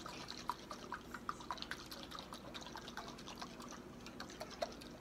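Faint, scattered small clicks and ticks, several a second, from food and utensils being handled at a plate, over a low steady hum.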